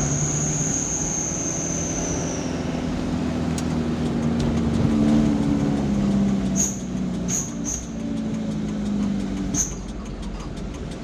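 Motor vehicle engine running over road noise, its hum shifting slightly in pitch. A thin high squeal fades out in the first couple of seconds, and a few short high clicks come in the second half.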